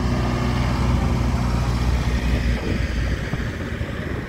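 Road train's locomotive engine running as it drives past, a steady low hum that fades a little past halfway through, then the towed carriages rolling by.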